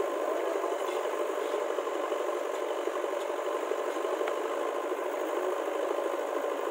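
Engine of heavy machinery (a JCB or tractor) running steadily.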